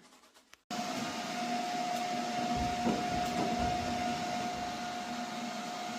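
A steady machine hum with a constant whine, starting suddenly about a second in.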